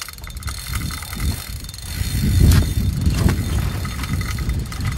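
Fishing reel clicking rapidly as line is worked in on a heavily bent rod, the clicks plainest near the start, over low irregular wind buffeting on the microphone that swells and is loudest about halfway through.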